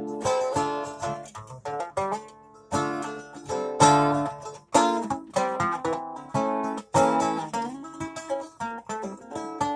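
A plucked string instrument played solo: chords and single notes struck sharply and left to ring and fade, in an uneven rhythm with brief pauses.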